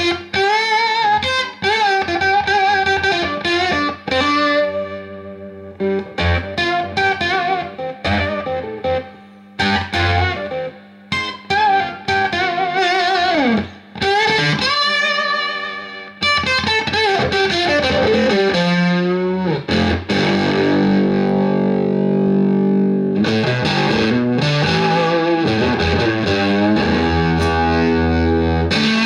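Electric guitar played through a BYOC Octave Fuzz pedal, a clone of the Roger Mayer Octavia octave fuzz, into a Marshall JCM 2000 DSL 401 valve combo amp. It plays short fuzzy stabs and bent notes, with a long downward slide about halfway through, then sustained chords ringing out near the end.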